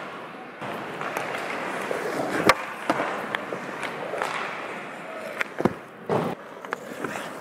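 Hockey skate blades scraping and sliding on rough ice as a goalie moves in the crease, with a run of sharp knocks from pucks and sticks; the loudest crack comes about two and a half seconds in, with more just before and after six seconds.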